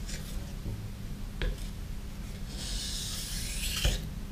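Kitchen knife blade drawn over the fine 3000-grit side of a soaked whetstone without pressure, the final fine-honing stroke that takes off the remaining burr: a soft hissing scrape for a little over a second past the middle, with a light tick about a second and a half in and another as the scrape ends.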